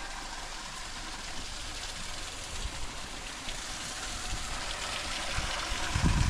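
Small stream running: a steady rush of flowing water, with a brief low rumble near the end.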